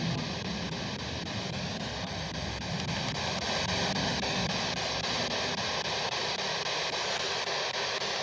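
Steady hiss of static noise.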